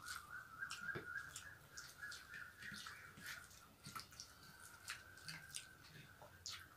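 Quiet, wet mouth sounds of people eating rice and curry by hand: many soft clicks and smacks of chewing, with a faint steady high tone underneath.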